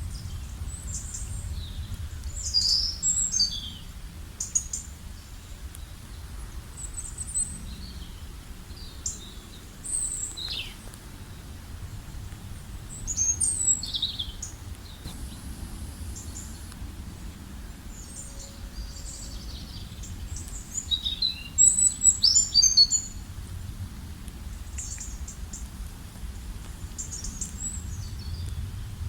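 Songbirds chirping and singing in short, high-pitched phrases that come in scattered flurries, the loudest about two-thirds of the way in, over a faint low rumble.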